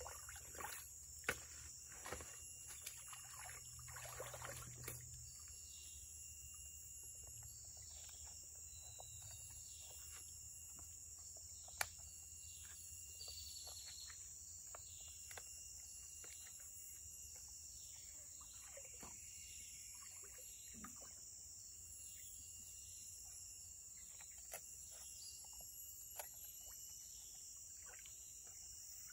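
Tropical forest insects droning steadily at a high pitch, with a short falling call repeated over and over in the second half. Small splashes and knocks of water being stirred by hand come in the first few seconds.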